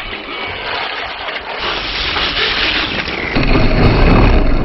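Traxxas HOSS RC truck driving through shallow seawater: a loud rushing of splashing water and wind on the microphone. About three and a half seconds in it gets louder and deeper, as spray washes over the truck-mounted camera.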